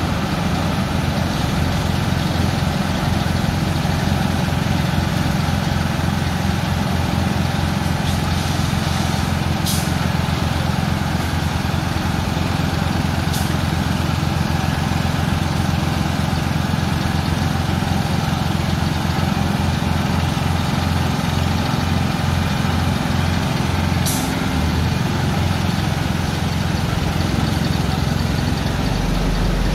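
Diesel engine of a boom-crane truck idling steadily with a low, even pulse. Three brief hisses stand out over it, about ten, thirteen and twenty-four seconds in.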